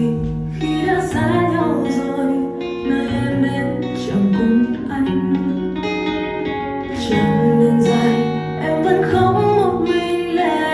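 Song music led by acoustic guitar, played back through a Harman/Kardon Citation 200 speaker during its sound test.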